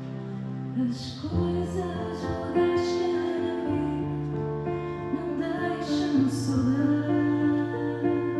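A woman sings a slow song to digital piano accompaniment. Her voice comes in about a second in, over held chords.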